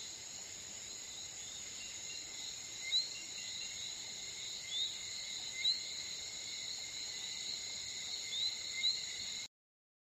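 Steady, high-pitched chorus of insects with short rising chirps every second or two, cutting off abruptly near the end.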